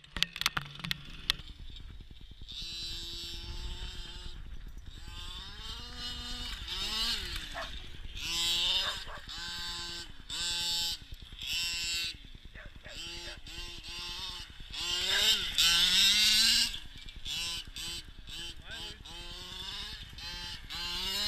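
Losi 5ive T RC truck's 26cc two-stroke petrol engine revving up and down again and again, each rev rising, holding briefly, then falling.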